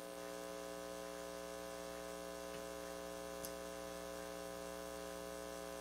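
Steady electrical mains hum, a quiet buzz of many even overtones, with one faint click about three and a half seconds in.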